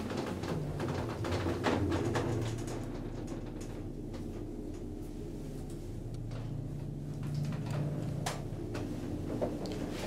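Elevator car running in its shaft: a steady low hum with a few clicks and knocks near the start and again near the end.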